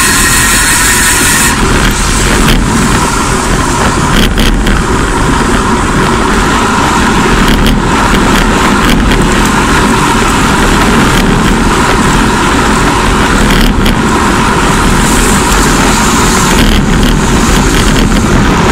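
Steady wind rush on a bike-mounted camera's microphone while riding at about 40–45 km/h, mixed with tyre noise on the road and a few short knocks.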